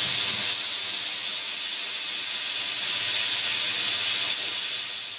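Jeweler's soldering torch flame hissing steadily as it heats the solder seam of a silver ring shank, getting quieter near the end.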